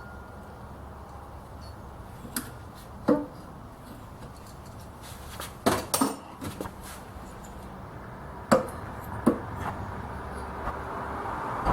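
Scattered sharp clicks and taps of hand tools and metal parts, about half a dozen spread irregularly, as the ignition coil on a Tecumseh lawn mower engine is set to a 20-thousandths-of-an-inch gap from the flywheel magnet. A low steady hum runs underneath.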